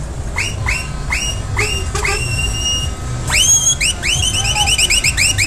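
Electronic siren effect sounding a run of rising whoops, about two a second. One whoop is held for about a second from two seconds in, a long upward swoop comes a little past three seconds, and quicker chirps follow. A steady low rumble runs underneath.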